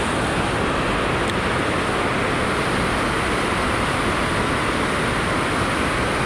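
Steady, loud rush of water pouring through the river lock and dam, an unbroken roar with no rise or fall.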